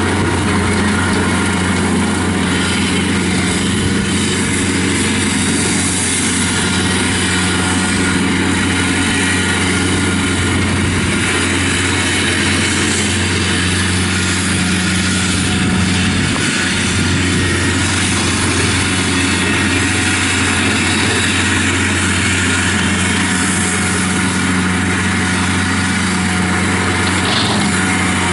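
Kubota B2910 compact tractor's three-cylinder diesel engine running at a steady speed, driving a 60-inch rotary cutter (brush hog) through grass as the tractor mows.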